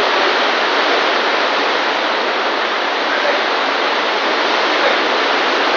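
Heavy rain pouring down on a translucent plastic roof overhead: a loud, steady, unbroken hiss.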